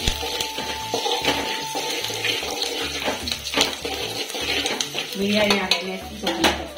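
A metal spoon stirring and scraping sliced onions and green chillies frying in oil in an aluminium pot, with repeated scrapes of metal on metal.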